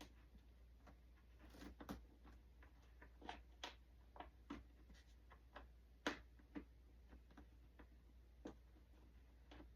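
Faint, irregular clicks and light taps of a small hex wrench working on the tail screws, the loudest click about six seconds in.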